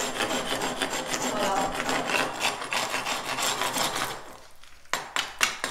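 A hand scraper rasping over a rough cement-rendered wall, scratching off lumps of excess cement in quick continuous strokes. The scraping stops about four seconds in, and a few sharp taps follow near the end.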